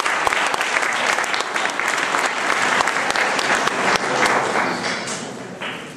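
Audience applauding: dense clapping that holds steady, then dies away over the last second or so.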